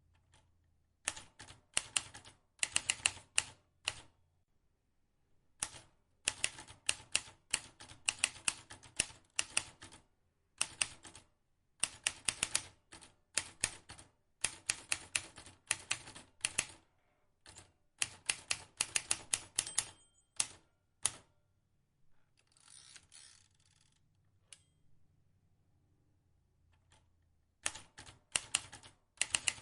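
Vintage manual typewriter being typed on: rapid runs of key clacks in bursts of a few seconds, separated by short pauses. A longer pause after about 21 seconds holds a brief rasping noise, and the typing resumes near the end.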